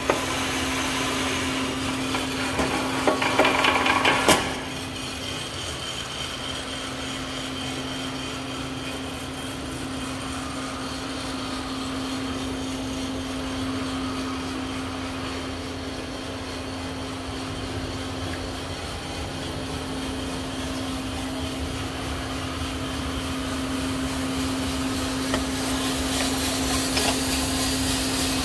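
Coffed SR5 5 kg drum coffee roaster running, with a steady hum from its motor and fan under an even rushing noise. A burst of clatter ends in a sharp knock about four seconds in.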